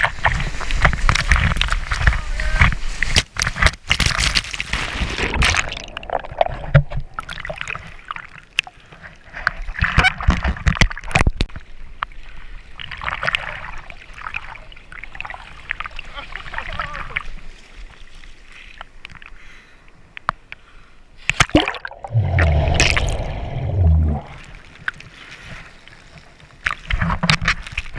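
Seawater splashing and sloshing around a camera in the surf, in uneven surges, with a heavy low rumbling burst of water or buffeting about two-thirds of the way through.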